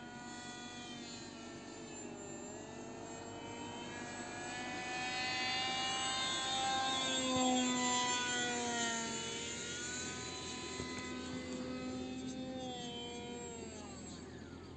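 Whine of the electric brushless motor (2217, 2200kV) and 6×5.3-inch pusher propeller of an RC depron Mirage 2000 model in flight. The pitch falls and rises as it manoeuvres and passes. It is loudest about halfway through, as it flies close overhead.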